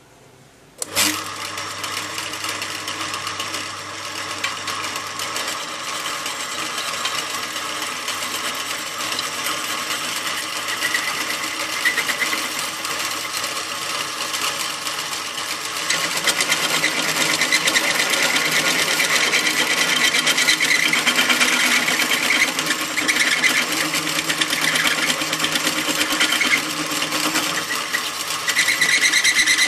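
Drill press switched on about a second in and running steadily as its bit drills into a rusty steel bar; the sound of the cutting gets louder about halfway through and stays loud to the end.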